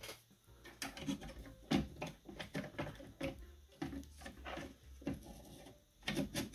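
Hands working a plastic case fan loose from a sheet-metal power supply housing: irregular clicks, taps and scrapes of plastic against metal.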